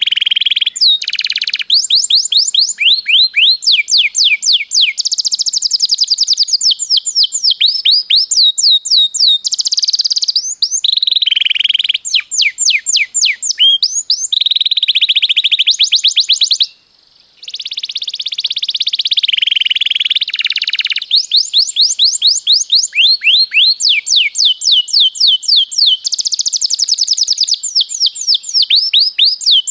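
Domestic canary singing continuously in long rolls: fast trains of repeated high notes, each sweeping downward, alternating with buzzier held phrases. There is a brief pause about 17 seconds in.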